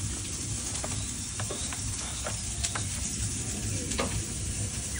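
Food sizzling on a barbecue grill: a steady hiss with scattered crackles and pops.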